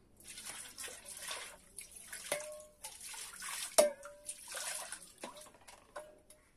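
Water poured from a plastic mug splashing into and over a stainless steel bowl into a basin of water, with four sharp metallic clinks of the steel bowl, each ringing briefly; the loudest comes a little past the middle.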